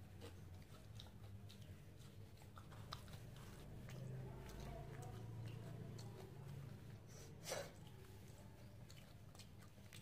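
Faint chewing and small mouth clicks of a person eating rice, with one louder click about three-quarters of the way through.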